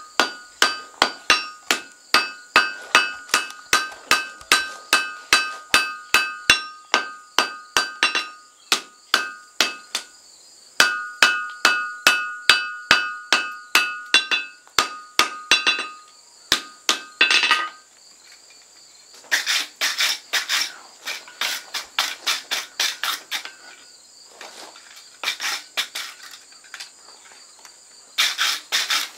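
Hand hammer striking a red-hot froe eye on an anvil to forge-weld it, with the anvil ringing after each blow. The blows come steadily about two a second, then after a short pause resume, and later turn to quicker, lighter strikes in short bursts.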